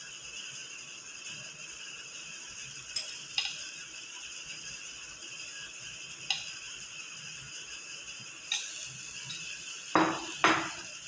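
A spoon clinking against a dish about six times as semolina batter is spooned over the potato filling, the last two clinks near the end the loudest, over a faint steady hiss.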